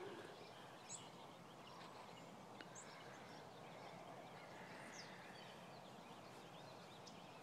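Near silence: faint barn background with a few faint, short high chirps, about one every two seconds.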